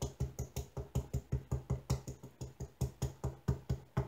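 Rapid, even tapping of a sponge-tipped sealer bottle dabbed again and again onto a diamond painting's resin drills, about six taps a second. The sealer is being dotted on like a bingo dauber.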